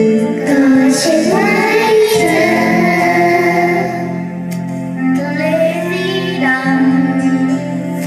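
A group of children singing a Thai song together through microphones, over backing music with steady held notes.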